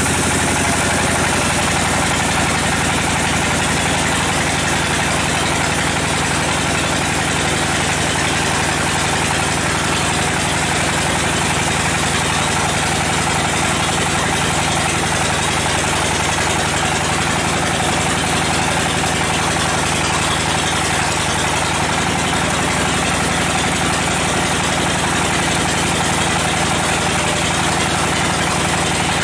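Sawmill band saw running steadily as its blade cuts lengthwise through a large mahogany log, over the even hum of the saw's drive.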